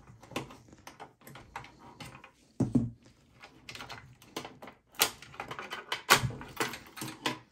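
Cables, connectors and parts being handled inside an HP EliteDesk 800 G1's sheet-metal case: a run of light clicks and rattles, a dull knock about two and a half seconds in, and louder clacks around five and six seconds in.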